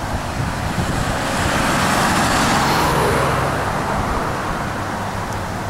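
Fighter jet flying over: a rushing roar that swells to its loudest two to three seconds in, drops in pitch as it passes, and fades.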